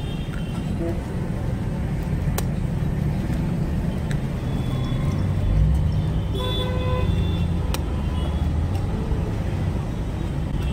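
Steady street-traffic rumble, with a vehicle horn sounding for about a second a little past the middle. A few sharp taps come over it as eggs are cracked onto the griddle.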